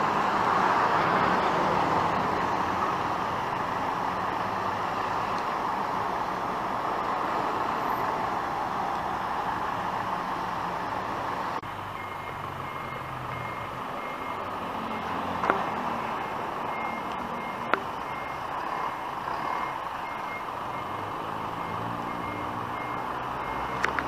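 Truck and traffic running on a wet street; about halfway in, a truck's reversing alarm starts, a steady run of evenly spaced high beeps as it backs up, with two sharp knocks along the way.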